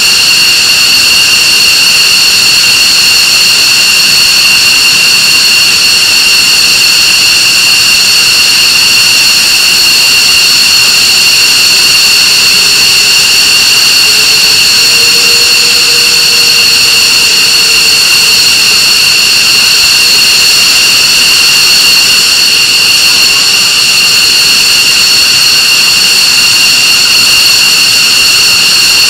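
F-15C Eagle's Pratt & Whitney F100 turbofan engines running at ground idle after start-up: a loud, steady high-pitched whine over a jet rush.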